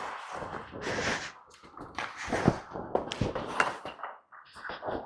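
Ice hockey play picked up by a goalie's body microphone: irregular scraping and rustling noises, with a few sharp knocks around the middle.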